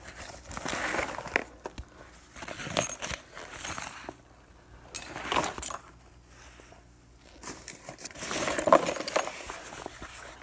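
A black nylon backpack being handled and shifted in a cardboard box: fabric rustling with small metal clinks and clicks, in several irregular bursts, the busiest one near the end.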